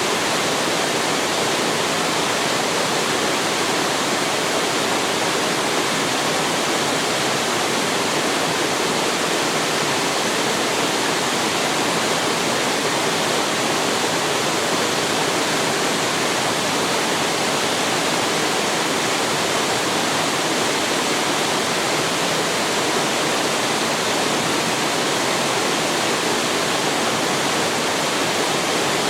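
Waterfall in a mountain stream, water pouring and rushing in a steady, unbroken hiss with no change in level.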